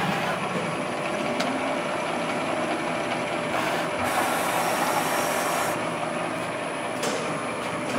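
Fryer MB-15 CNC vertical mill running under program, its spindle and drives giving a steady mechanical hum. A few light clicks, and a brief higher hiss starting about four seconds in and lasting under two seconds.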